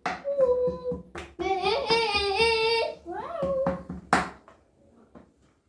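A child's high voice making drawn-out, sung vocal sounds that slide up and down in pitch, then a sharp click about four seconds in before it goes quiet.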